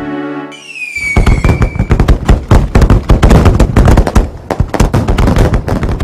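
Fireworks: a slightly falling whistle from a rising rocket, then a rapid barrage of bangs and crackles that stops suddenly.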